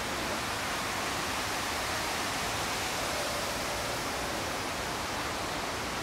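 Steady, even rushing of falling water, typical of the Cloud Forest conservatory's tall indoor waterfall.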